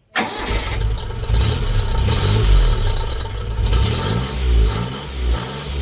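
Suzuki Khyber's engine being revved again and again through an exhaust fitted with a tailpipe turbo-whistle insert. The insert gives several short, high-pitched whistles on the revs, clearest near the end: a cheap sound that the owner calls third-class.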